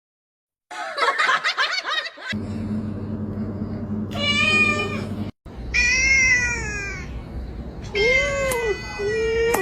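A domestic cat meowing four times, each meow drawn out for up to about a second, over a low steady hum. Before the meows there is a brief, busy high-pitched sound.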